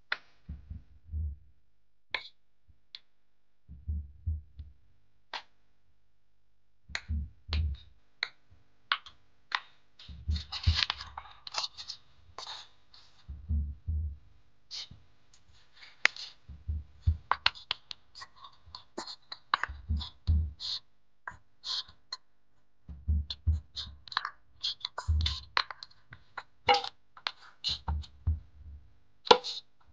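Wheat-flour dough being kneaded by hand in a steel bowl: dull thumps as the fist presses the dough down, in clusters of two or three every second or two, with light metallic clicks and scrapes from the bowl.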